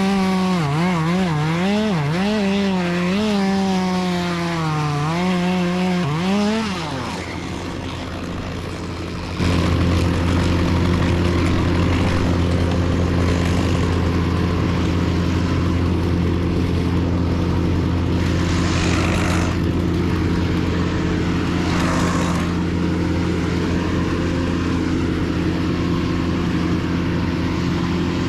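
Chainsaw revving in quick, uneven throttle blips, cutting out about seven seconds in. A couple of seconds later a steady engine drone starts and runs on evenly.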